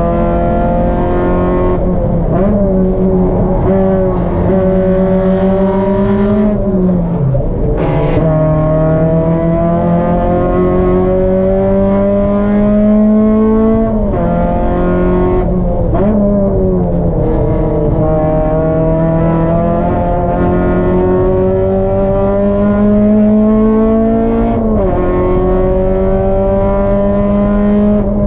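Race car engine running hard at high revs, its pitch climbing slowly and then dropping sharply about four times as the throttle is lifted for corners and reapplied.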